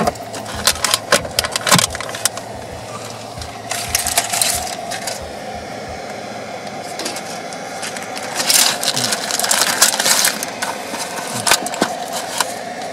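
Clicks, knocks and rattles of plugs and cables being handled: a small power inverter is plugged into a car's cigarette-lighter socket and a camera battery charger is connected to it.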